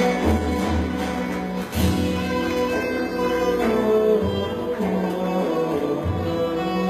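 Turkish zeybek folk dance music: a sustained melody line over a low, pulsing beat.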